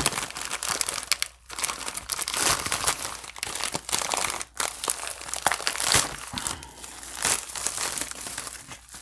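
Packaging crinkling and rustling in someone's hands as a mailed package is opened and unwrapped, in uneven bursts with short pauses.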